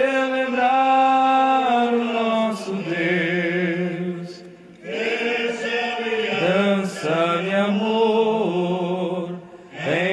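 Voices singing a slow Portuguese Catholic entrance hymn in long, held notes, with a short break about four and a half seconds in.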